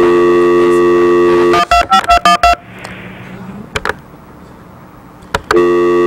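Telephone dial tone for about a second and a half, then a quick run of about six touch-tone keypad beeps as a number is dialed. The dial tone comes back near the end.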